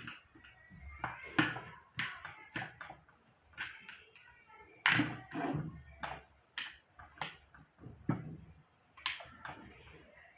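A series of irregular knocks and taps, about a dozen, with the loudest about five seconds in and another near nine seconds.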